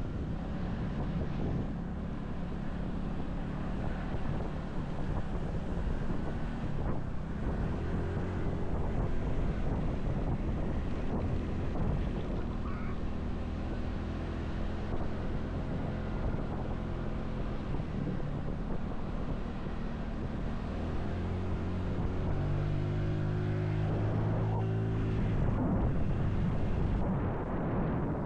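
Motorcycle engine running under way, its pitch rising and falling with the throttle, with wind rushing over the microphone.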